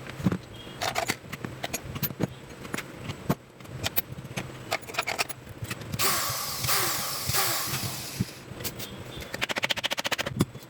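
Clicks and knocks of tools and metal parts being handled while a die grinder is taken apart. About six seconds in there is a rushing noise lasting about two seconds, and near the end a quick run of clicks.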